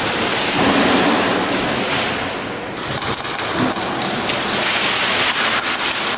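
Airsoft gunfire in close quarters, with BBs striking walls and cover. It is a dense, nearly continuous run of sharp clicks and taps.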